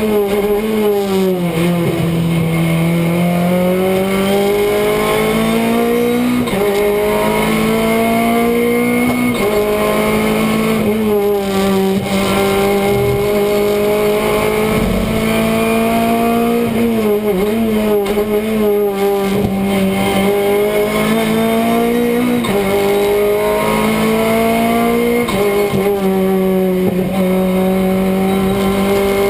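Renault Clio Cup race car's engine at racing speed, heard from inside the cockpit: the engine note climbs as it accelerates and drops back at each gear change, several times over.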